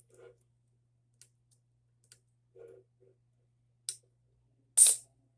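Close-up snacking noises from marshmallows and Coke: light mouth clicks and two short closed-mouth hums. About five seconds in comes a brief, sharp rushing hiss, the loudest sound.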